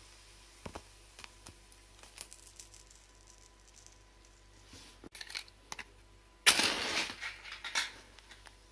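Faint scattered clicks and crackles, then a wooden match struck and flaring with a sudden loud hiss about two-thirds of the way through, dying down over about a second with a few more crackles.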